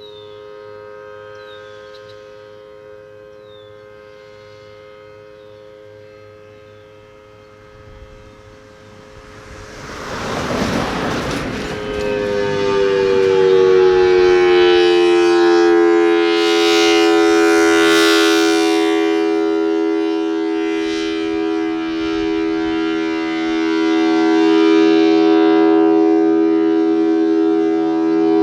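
Federal Signal Thunderbolt 1000T siren with a 4/5-port rotor coming up. Over faint steady tones and a few bird chirps, a loud rush of air rises about ten seconds in. Then its two-note chord sounds loudly, dipping slightly in pitch before holding steady.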